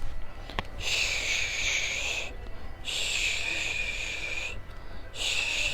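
A woman shushing a baby to soothe it: three long "shh" sounds, each about a second and a half, with short pauses between them. It is a calming technique for a crying or cranky infant.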